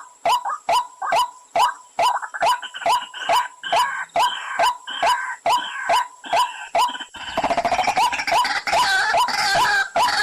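Recorded calls of the pullakodi, a waterhen, played as a hunting lure: sharp, rapid call notes about three to four a second, which turn into a denser run of overlapping calls about seven seconds in.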